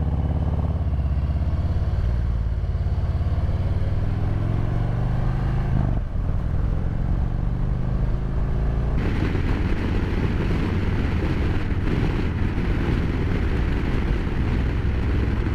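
Harley-Davidson Road Glide Special's V-twin through Rinehart slimline true-dual exhausts, pulling hard while the motorcycle accelerates, its note rising over the first few seconds with a brief break around a gear change. From about nine seconds in, a steady rush of wind noise mixes in with the engine.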